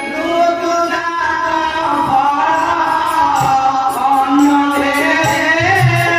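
Music from a jatra stage show: a voice singing held, gliding notes over sustained instrumental accompaniment, with a steady percussion beat.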